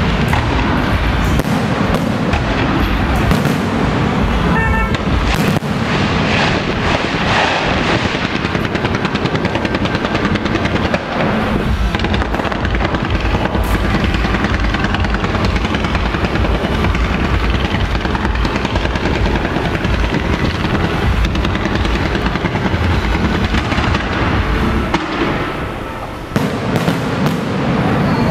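Electronically fired aerial fireworks show: a dense, unbroken barrage of shell bursts and crackling, easing briefly near the end.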